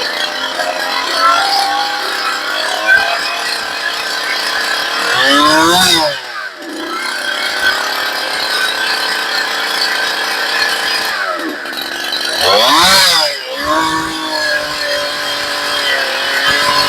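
Two-stroke chainsaw running at high revs through a log, holding a steady pitch under load. Twice, about a third and about three-quarters of the way through, the engine note sweeps sharply up and back down as the saw frees up. The carburettor has just been leaned an eighth of a turn because the saw was running rich.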